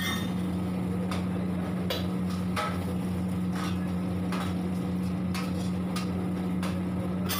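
Metal ladle knocking and scraping against a steel wok as food is stirred, an irregular clink roughly once a second, over a steady low hum.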